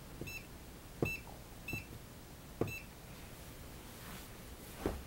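Handheld RF meter's alarm giving four short, high beeps in under three seconds, with soft thumps alongside and one more near the end. The beeping signals a detected burst of microwave radio signal, which the owner attributes to the household smart meter's transmission pulses.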